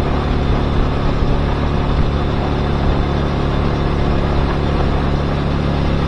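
Motorcycle engine running at a steady pitch, with a rushing noise over it.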